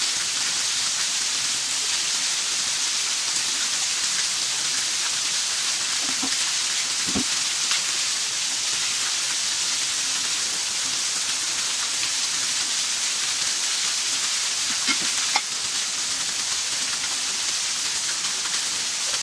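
Water pouring from pipe spouts and a thin waterfall, splashing steadily onto a concrete floor and onto people bathing under it: an even hiss, with a faint knock about seven seconds in and another near fifteen seconds.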